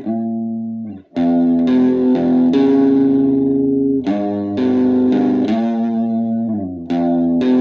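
Instrumental music: guitar playing sustained chords over a bass line, changing chord every second or so, with a short break about a second in.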